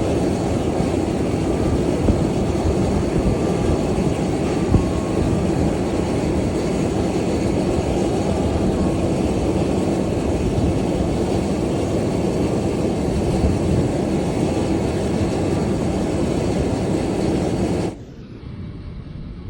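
Emirates Boeing 777-300ER's GE90 jet engines making a loud, steady roar as the airliner arrives. The roar cuts off abruptly near the end.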